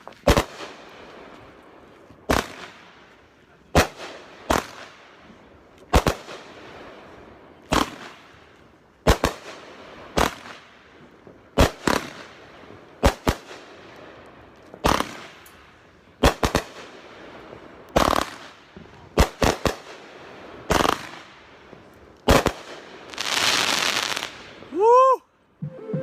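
A 25-shot consumer firework cake firing. Loud sharp bangs come every second or two, some in quick pairs, and near the end a dense burst of noise lasts about two seconds.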